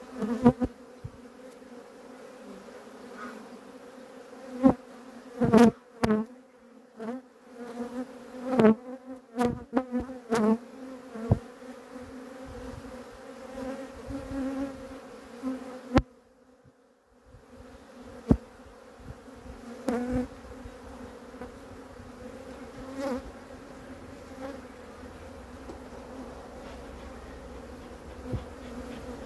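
Honeybees buzzing in a steady hum around an open hive whose frames are being inspected. A few sharp knocks break through, clustered between about five and eleven seconds in.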